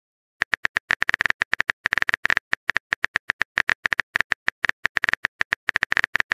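Keyboard tap sound effect of a texting app, a quick, irregular run of short sharp clicks as a message is typed letter by letter.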